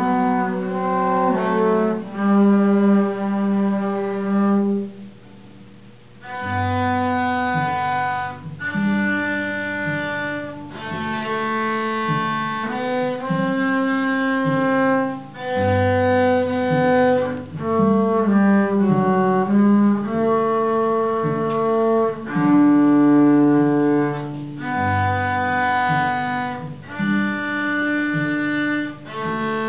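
Two cellos playing a bowed duet in a slow classical piece, with sustained notes in two parts. After a short pause about five seconds in, a long low held note enters beneath the melody three times.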